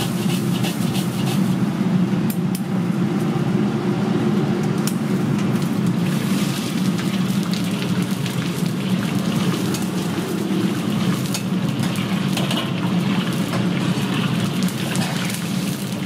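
Gas wok burner running with a steady low rush under a carbon-steel wok; a bamboo wok brush and a ladle scrape and clatter against the steel early on, and from about six seconds in, oil sizzles and hisses in the hot wok.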